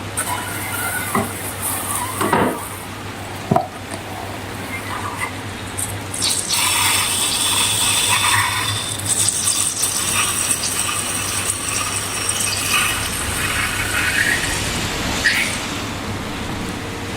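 Slime and balloon rubber being worked by hand: a few sharp clicks in the first seconds, then a longer stretch of dense crackling noise in the middle. A steady low hum runs underneath.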